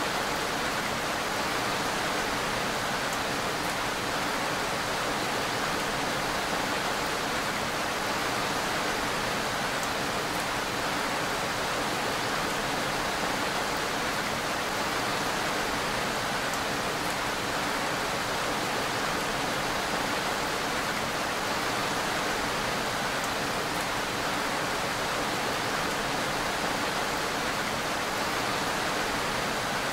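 Steady rainfall, an even hiss that holds unchanged throughout.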